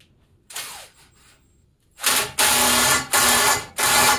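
Electric drill driving a pipe expander inside the end of steel exhaust tubing to flare it out, run in short bursts on the trigger. There is a brief whir that spins down about half a second in, then four runs in quick succession from about two seconds in.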